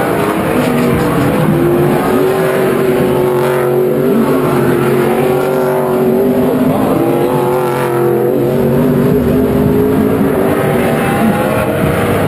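NASCAR Pinty's Series stock cars' V8 engines running hard through a turn. Several cars overlap, their pitch rising and falling as each accelerates and passes, with rising sweeps about three and a half and eight seconds in.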